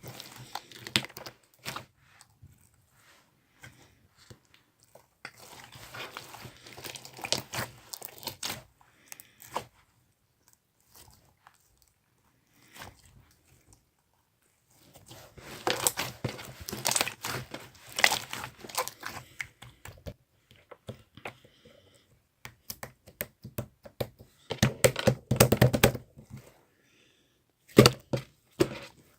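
Slime being squished and stretched by hand: spells of dense little clicks and pops, with quieter pauses between, the busiest about five seconds in, in the middle and near the end.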